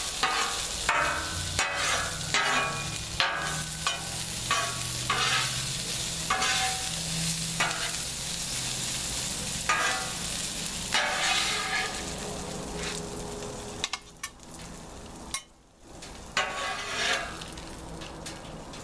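Metal spatula scraping sautéed vegetables across a hot Blackstone griddle top in quick repeated strokes, with the food sizzling. The strokes come about one a second at first and thin out later.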